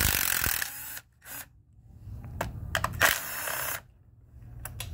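Cordless impact driver running in short bursts as it backs out the 8 mm bolts on the oil pan of a Ford 10R80 automatic transmission, with clicks as the socket and extension come on and off the bolts.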